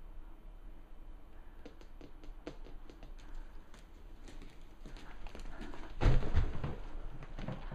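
A dog's snowball-clumped paws clicking and tapping on a linoleum floor as it moves about, the taps coming faster and closer together. A louder burst of knocks and thuds about six seconds in.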